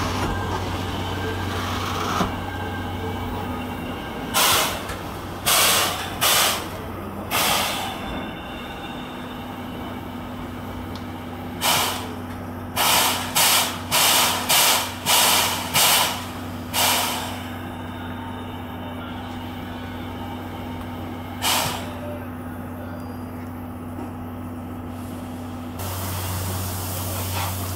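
C11 steam locomotive standing at a platform, giving off about a dozen short, sharp hisses, some in quick runs of nearly two a second, against a steady low hum.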